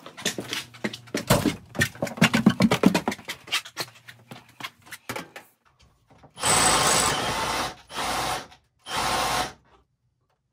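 Milwaukee rotary hammer drill with a 3/4-inch bit boring through a house wall. First a run of irregular knocks and scraping lasting about five seconds. Then the drill runs in three short bursts that start and stop sharply: the first about a second long, the next two about half a second each.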